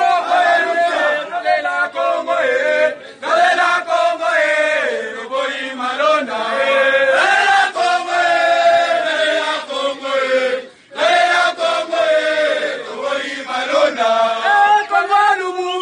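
A crowd of marchers chanting in unison, a sung protest chant of many voices, with two brief breaks.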